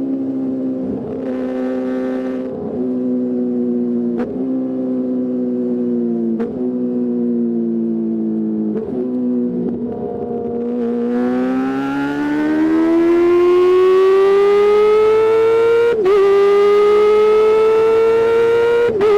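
Kawasaki ZX-25R's 250cc four-cylinder engine through a DX Generation Pro Race exhaust, running at a steady high pitch with a brief sharp break every two seconds or so. Then it climbs steadily in pitch for the last eight seconds as the revs build, with one short break about three seconds before the end.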